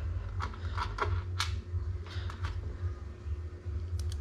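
Scattered light clicks and taps of motherboard standoffs being handled and moved in a computer case, over a steady low hum.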